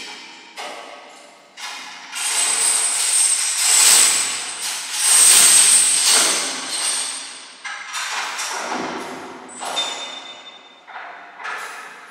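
Steel mesh gate of a colliery winding cage being opened by hand: metal rattling and clanking, with a long grating scrape and a high squeal, loudest in the middle, then lighter separate knocks near the end.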